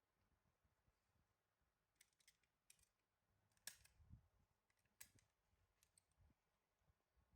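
Near silence broken by a few faint, brief clicks, the clearest about halfway through.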